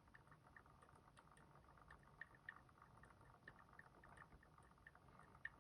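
Faint, quick, irregular light clicking of a lock pick tapping inside a Robur safety deposit box lock, working a sidebar side pin up out of a false gate.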